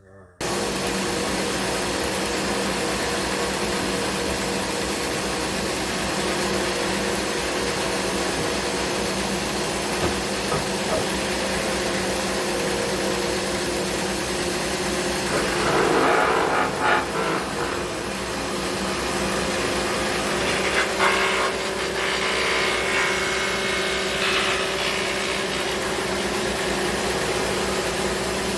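Thickness planer running steadily with a steady hum. It grows louder and harsher twice, around the middle and again a few seconds later, as the knives cut a rough-sawn walnut board.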